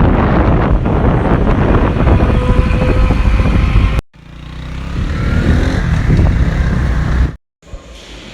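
Motorcycle running on the move, a loud dense low rumble that cuts off abruptly about four seconds in and again near the end.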